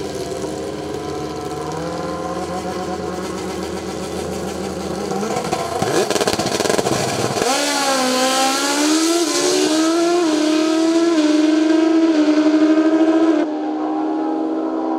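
Two drag-racing motorcycles running at the starting line, revving hard, then launching. The engines climb in pitch through several quick gear shifts, each marked by a drop in pitch, and get quieter near the end as the bikes pull away down the strip.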